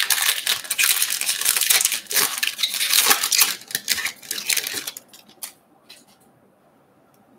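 Baseball card pack's foil wrapper being torn open and crinkled by hand. It makes loud crackling for about five seconds, then a couple of light rustles as the cards come out.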